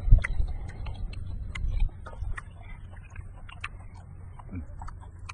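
Close-miked eating sounds: scattered wet clicks of chewing and lip-smacking while cooked beef-head meat is pulled apart by hand. A low thump comes just after the start and another about two seconds in.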